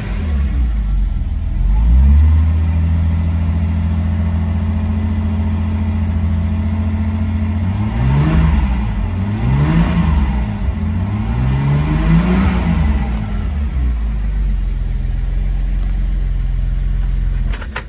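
1970 Mercedes-Benz 280SL's fuel-injected 2.8-litre straight-six, heard from inside the cabin, running steadily, then revved in several quick blips that rise and fall before it settles back to a steady idle. The engine shuts off just before the end.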